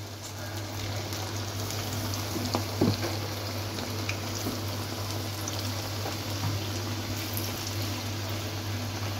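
Besan-coated chicken pieces deep-frying in ghee heated on high flame: a steady bubbling sizzle. A brief louder sizzle about three seconds in as another piece is lowered in by hand.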